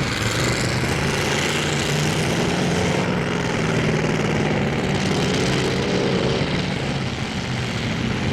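Demolition derby cars' engines running loud together, with one engine revving up and back down about five to six seconds in.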